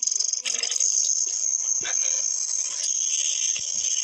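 A high-pitched, insect-like trill, like chirring crickets or cicadas, held steady with a few faint clicks.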